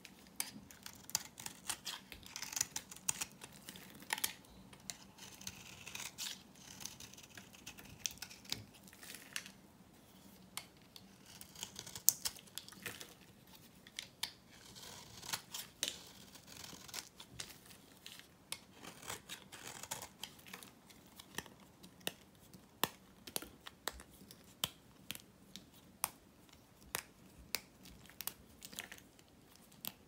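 Knife cutting and shaving a bar of hard, dry soap: a steady run of sharp cracks and crunches as chips break off, with stretches of dry scraping in between.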